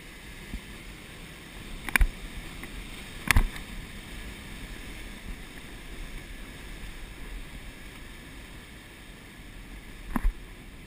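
Steady rush of water and wind as a boat runs through breaking surf, with three sharp knocks about two, three and a half and ten seconds in.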